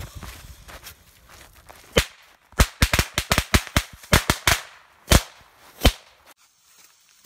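A string of small firecrackers going off one after another: about a dozen sharp bangs at uneven, quick intervals from about two seconds in, thinning to two last bangs near six seconds.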